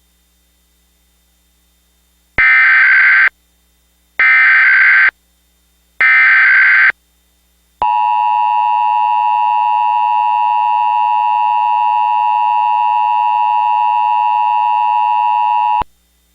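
Emergency Alert System tones: three short bursts of screeching digital SAME header data, then the steady two-tone EAS attention signal held for about eight seconds before it cuts off. This opens a Required Monthly Test activation.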